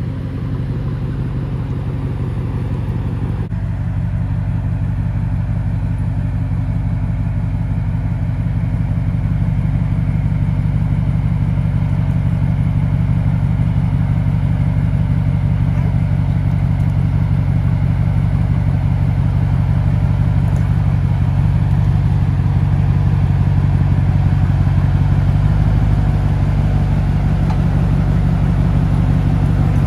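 Jeep Wrangler JL Rubicon 392's 6.4-litre HEMI V8, with an aftermarket exhaust, running at low, steady revs as it crawls over rock ledges, growing gradually louder as it draws closer.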